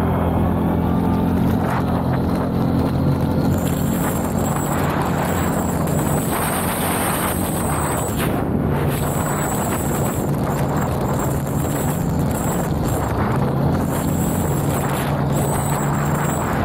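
CF Moto 850 quad's V-twin engine running at a fairly steady pitch while riding along a sandy dirt track, with wind rush on the microphone.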